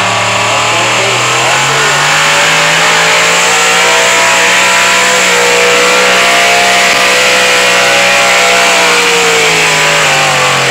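Pickup truck engine running hard under load as it pulls a weight-transfer sled, a steady high-revving note that dips in pitch near the end as the pull winds down.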